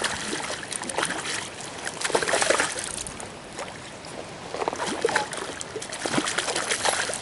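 A hooked trout thrashing and splashing at the water's surface in several irregular bursts, the loudest about two seconds in, with more splashing through the last few seconds.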